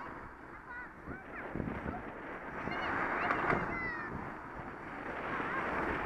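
Wind noise on a riding bicycle's camera microphone, with motor traffic overtaking close by, loudest about three seconds in. Short high chirps and squeaks come and go over it.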